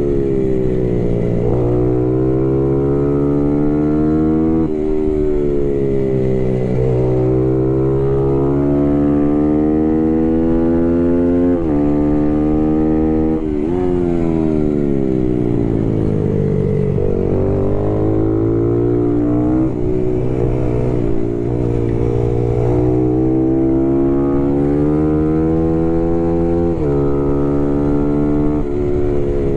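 Small race motorcycle's engine, heard from on board, revving up through the gears with a sudden drop in pitch at each upshift. About halfway through it eases off and falls in pitch, then pulls up again.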